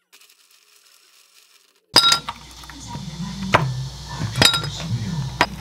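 Near silence for about two seconds, then ice cubes dropped by hand into a tall glass, clinking. A sharp first clink is followed by several more, over a low steady hum.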